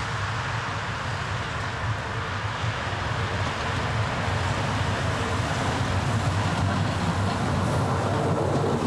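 DB class 64 steam tank locomotive working a train under steam, its exhaust beats and running gear growing louder as it approaches and passes close by near the end.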